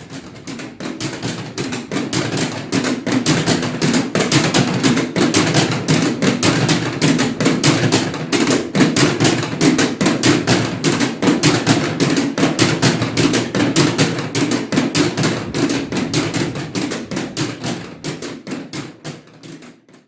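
Church matraca, the wooden rattle sounded in Holy Week in place of the bells, clattering in a fast, unbroken run of knocks. It swells up over the first couple of seconds and dies away near the end.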